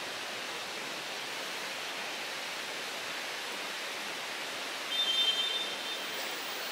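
Steady background hiss of room noise, with a brief high-pitched squeak about five seconds in.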